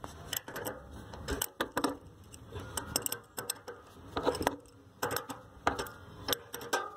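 Adjustable wrench clinking against the metal mounting nuts and studs of a single-lever kitchen faucet as the nuts are tightened: an irregular string of sharp metallic clicks and taps.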